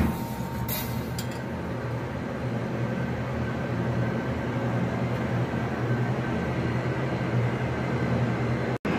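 Steady low mechanical hum with a rushing noise from shop equipment running, with a faint metal click or two about a second in.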